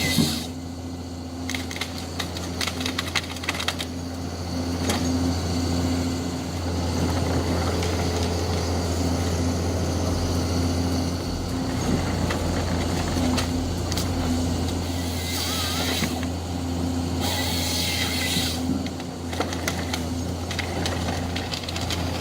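Heavy forestry machine's engine running steadily, a constant low hum, with scattered sharp clicks and cracks over it in the first few seconds.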